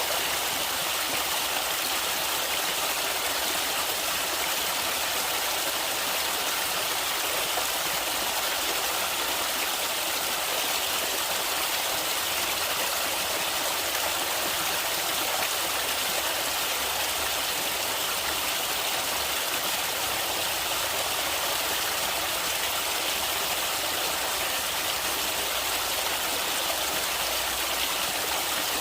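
Stream water flowing and splashing over rocks, a steady even rush with no pauses.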